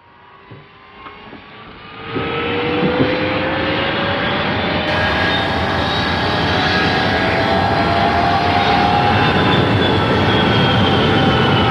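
Jet airliner's engines spooling up: a slowly rising whine over a steady loud rush that jumps up in level about two seconds in.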